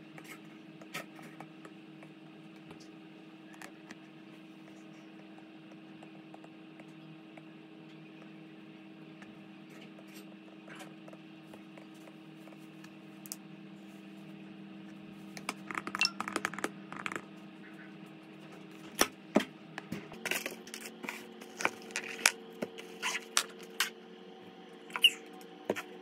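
A few isolated light clicks, then from about halfway a busier run of sharp taps of an Apple Pencil on an iPad screen, all over a steady low hum.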